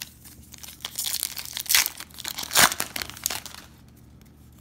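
Foil Bowman trading-card pack being torn open by hand: the wrapper crinkles, with several louder tearing rips about two seconds in, then the noise stops.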